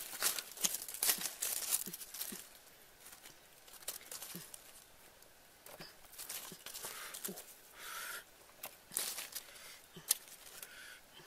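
Dry fallen leaves rustling and crackling as a hand searches through leaf litter and picks small mushrooms. The crackles come in irregular clusters, busiest in the first couple of seconds and again about nine to ten seconds in.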